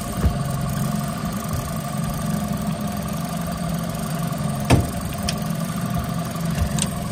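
Fishing boat's motor running steadily at trolling speed, with a sharp knock about two-thirds of the way through and a couple of fainter clicks.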